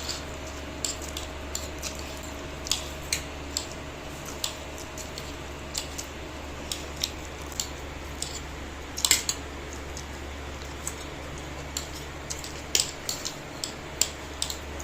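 Cutlery clicking against plates in irregular sharp taps while people eat chow mein, with a small cluster of louder clinks about nine seconds in, over a steady low hum.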